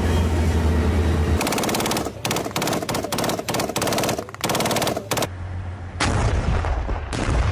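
A low rumble, then from about a second and a half in several long bursts of rapid automatic machine-gun fire. After a break, a louder low-pitched blast of noise comes near the end.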